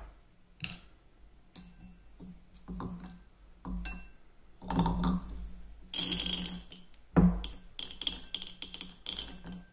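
Small metal parts of a linear bearing carriage clicking, knocking and rattling as they are handled and taken apart, with a longer rattle about six seconds in and a quick run of clicks near the end. A low steady hum sits underneath.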